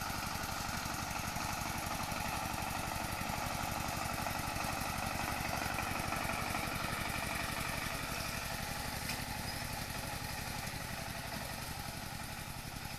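An engine running steadily at constant speed, with a fast, even chugging pulse, as of harvesting machinery working in a paddy field.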